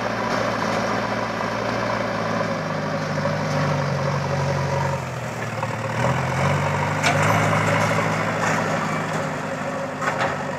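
JCB 3DX backhoe loader's diesel engine working under load as the front bucket pushes soil, its pitch rising, dipping briefly about halfway through, then rising again. A few sharp knocks come about seven and ten seconds in.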